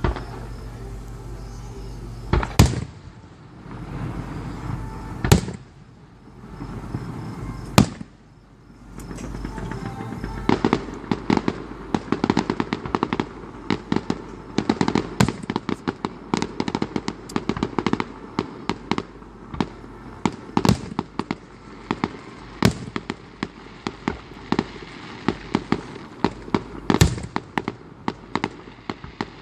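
Aerial fireworks going off: three loud single booms in the first eight seconds, then from about ten seconds in a dense, rapid crackle of many small pops with louder booms mixed in.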